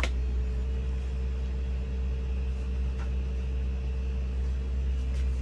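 A steady low machine hum with a faint steady whine above it, and a light click at the start.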